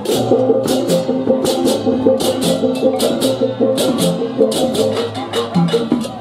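Balinese baleganjur processional gamelan: clashing hand cymbals (ceng-ceng kopyak) struck in rapid, interlocking strokes over kendang drums and steady pitched gong tones.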